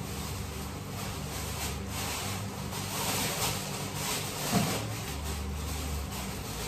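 Thin plastic bag crinkling and rustling as it is opened and handled, over a steady low hum.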